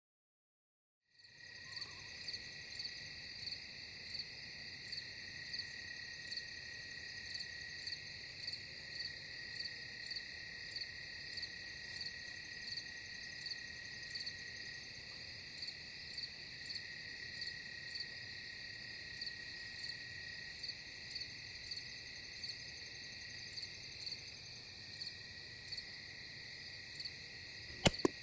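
Night insects calling steadily, starting about a second in: a continuous trill with a second, pulsed call repeating roughly every 0.7 seconds. Near the end a single sharp crack of an air rifle shot, the loudest sound.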